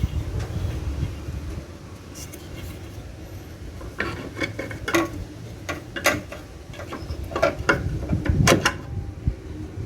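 Metallic clinks and knocks from tools and parts being handled while a van horn is unbolted and swapped. A run of sharp clicks comes between about four and nine seconds in, over a low steady rumble.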